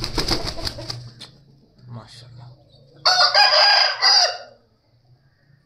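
An Aseel rooster crows once about three seconds in. The crow lasts about a second and a half and breaks briefly just before its last part. In the first second there is a short noisy burst.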